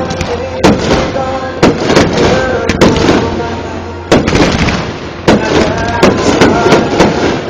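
Fireworks display: aerial shells bursting in loud, sharp bangs, about one a second, some in quick pairs, over a steady background of voices or music.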